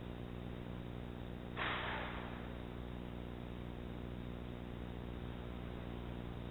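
A steady low electrical hum, with one sudden burst of noise about one and a half seconds in that fades within about half a second.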